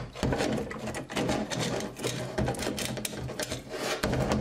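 Stack of automatic-transmission clutch plates (steel plates and friction discs) from a 6R80's forward clutch pack clicking and clattering against each other as they are handled and fanned apart by hand, in rapid irregular ticks.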